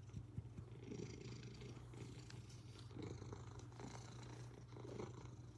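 Domestic cat purring softly close by, the purr swelling and easing in slow cycles with its breathing.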